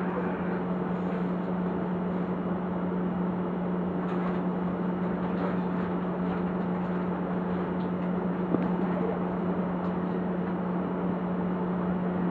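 Steady hum of a stationary Keio electric train's onboard equipment, with one strong low tone, and a faint tick about eight seconds in.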